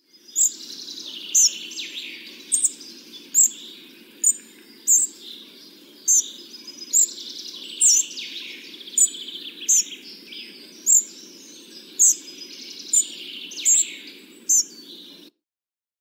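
Spotted flycatcher calling: short, sharp, high notes repeated about once a second over fainter background birdsong and a low steady hum. The recording stops abruptly near the end.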